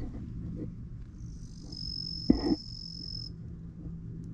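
An insect's high, steady trill lasting about two seconds, over a low steady hum. A short thump, the loudest sound, comes in the middle of the trill.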